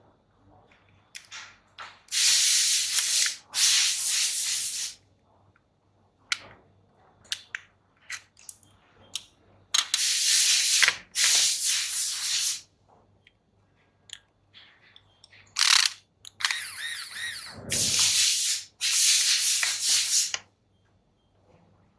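Repeated bursts of hissing spray, each lasting one to three seconds, with light clicks and taps between them.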